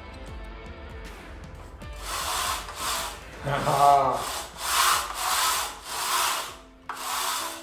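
HGR20 linear rail carriage pushed back and forth by hand along its steel rail, making about seven rubbing strokes from about two seconds in, with a short squeak around four seconds in. It is being slid to let its loosened wipers settle so it runs smoothly.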